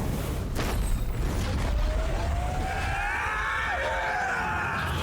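Redesigned anime fight sound effects: a heavy continuous rumble with a sharp impact crack about half a second in. From about a second and a half in, a wavering high-pitched sound rises and swells, then cuts off near the end.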